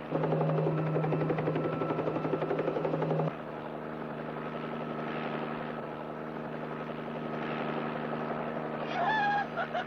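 Helicopter engine and rotor drone heard from inside the cabin as a steady low hum. It is louder with a fast rhythmic chop for about the first three seconds, then drops back to a steadier drone. Near the end comes a short, high, wavering cry.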